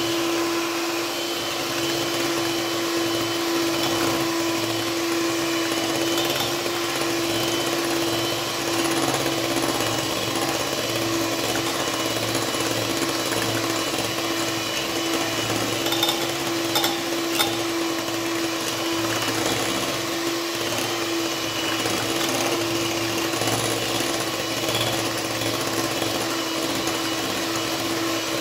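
Electric hand mixer running steadily at one speed, its twin beaters whipping cream in a plastic bowl, with a constant motor hum. A few brief clicks a little past the middle.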